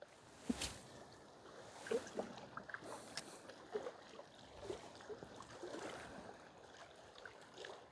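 Small waves lapping and sloshing irregularly against shoreline rocks, with a sharp click about half a second in.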